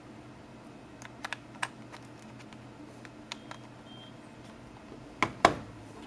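Small clicks and taps from handling a compact metal USB charging cable against a power bank, ending with two sharp, louder clicks about five seconds in as the cable's USB-A plug is pushed into the power bank's port.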